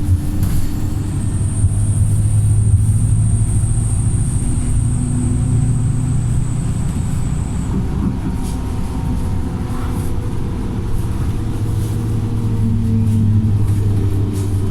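Wright StreetLite single-deck bus engine running under way, a steady heavy hum whose pitch shifts as it pulls, with a thin high whistle over it for the first half.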